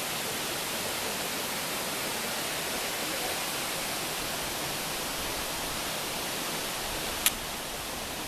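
Waterfall rushing with a steady, even roar of falling water. A single sharp click comes about seven seconds in.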